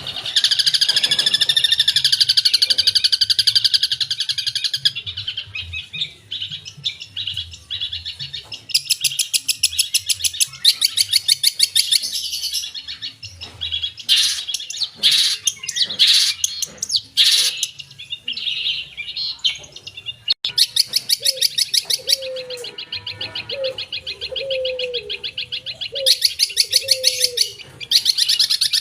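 Long-tailed shrike singing a fast, varied song of rapid high trills and chattering phrases, stringing together calls mimicked from other birds. A lower, wavering run of notes joins about two-thirds of the way through.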